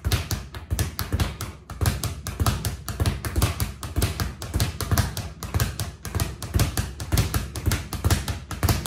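Title leather speed bag rebounding off a wooden platform, a rapid, even rattle of hits several times a second. The fist strikes on every second rebound as the punches switch between the front and the reverse side of the bag.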